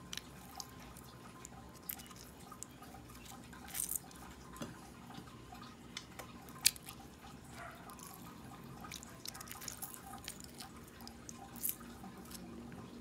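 Calamansi juice dripping through a plastic strainer into a bowl of marinade: scattered small drips and ticks, with one sharper click about six and a half seconds in.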